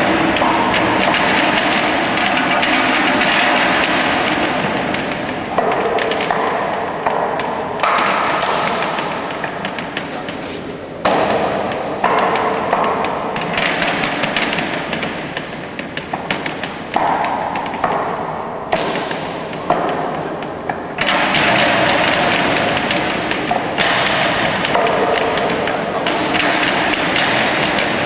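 Wing Chun wooden dummy struck in a fast, irregular run of wooden knocks and thuds as forearms and palms hit its wooden arms and trunk.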